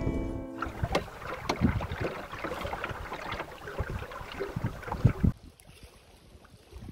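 A 12-foot sailing skiff underway in choppy water: water splashing and rushing against the hull, with wind on the microphone and scattered sharp knocks, the loudest about five seconds in. A song's guitar fades out in the first second. The sound drops suddenly after about five seconds to a much quieter background.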